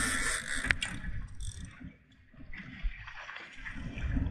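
Water rushing and splashing around the stern of a trolling boat, under an uneven low rumble. A single sharp click comes just under a second in.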